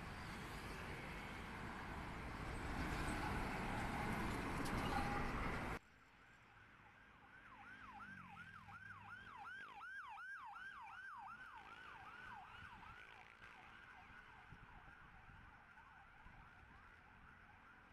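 Road traffic at a busy city intersection, trucks, cars and motorcycles passing, which cuts off abruptly; then a faint emergency-vehicle siren yelping, a fast repeating sweep of about three cycles a second that swells and fades over several seconds.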